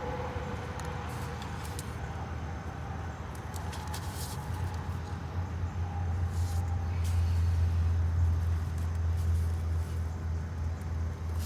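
Low engine rumble from a motor vehicle, growing louder about halfway through and then holding steady, with a few faint clicks over it.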